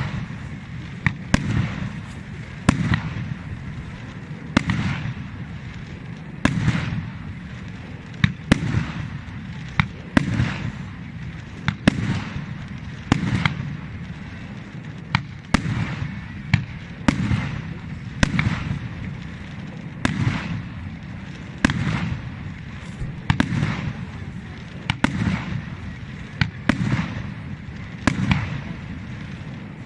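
Fireworks display: aerial shells bursting one after another, a sharp crack every second or two, each followed by a low rumbling boom.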